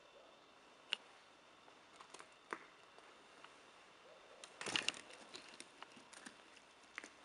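Footsteps crunching over broken concrete and brick rubble: scattered clicks of shifting debris, with the loudest crunch about four and a half seconds in.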